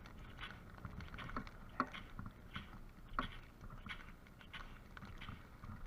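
Strong wind rumbling on the microphone, with sharp dry crackles about every half to three-quarters of a second.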